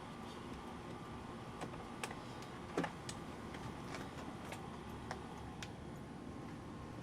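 Scattered light clicks and taps of hand tools and small parts being handled during door disassembly, with one louder knock about three seconds in, over a steady background hum.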